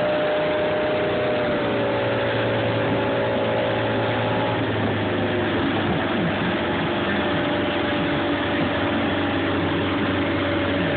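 Motorboat engine running steadily at speed, under a constant rush of wind and churning water from the wake.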